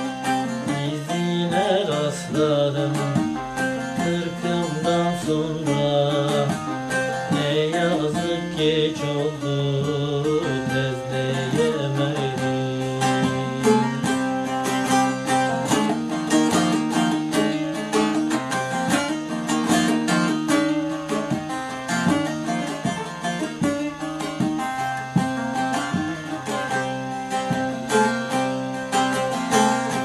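Bağlama (Turkish long-necked saz) played solo in a quick, steady run of strummed and plucked notes. It is an instrumental passage of a Turkish folk song.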